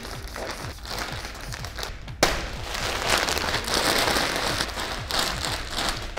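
A plastic bag of grain spawn being sprayed with a spray bottle, then a sharp snap about two seconds in and loud crinkling of the plastic as the bag is twisted and worked at to open it.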